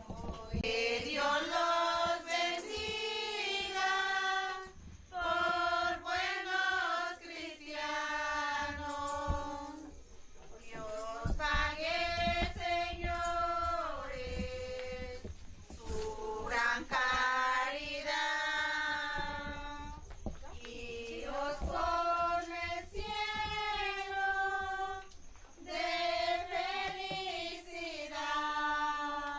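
A group of women and children singing a traditional posada song together in long held phrases, each a few seconds long with short breaths between.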